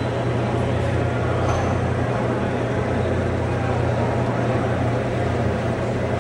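Steady background din of a busy exhibition hall: a continuous low hum under a wash of general noise and faint, indistinct voices.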